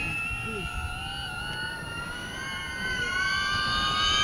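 A 5-inch FPV quadcopter's brushless motors and propellers whining under heavy load, the pitch and loudness rising over the last second or so as the throttle climbs toward full power. The quad is straining to hold up a 12,000 mAh 6S battery and is drawing about 1,000 watts or more just to stay in the air.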